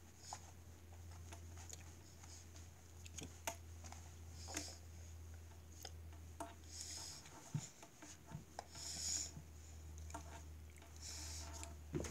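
Faint rustling and rubbing of clothing and hands moving near the microphone, with scattered light clicks, over a low steady hum.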